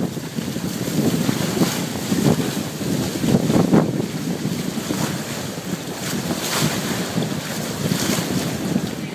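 Water rushing and churning past the main hull and float of a Cross 36 trimaran sailing fast, with gusty wind buffeting the microphone.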